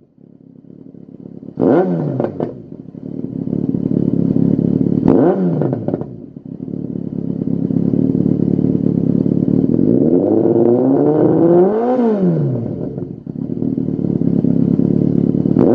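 Yamaha XJR1300's inline-four engine running through a Lextek XP8C carbon slip-on silencer, idling and being blipped: two quick revs early on, a slower, longer rev that climbs and falls back about two-thirds of the way through, and another quick rev at the end.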